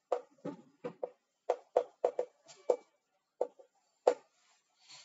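Chalk writing on a blackboard: about a dozen short, irregular taps and clicks as the chalk strikes the board with each stroke, stopping about four seconds in.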